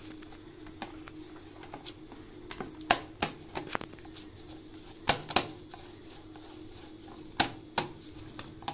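Hands kneading soft rice-flour dough on a plate, with sharp clicks of the plate coming mostly in pairs every two seconds or so as it is pressed and shifted.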